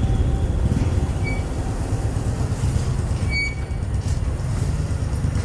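Motorcycle engine running steadily as the bike rides along.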